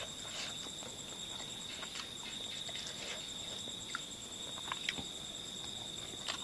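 Steady high-pitched trill of night insects such as crickets, with scattered small clicks and taps.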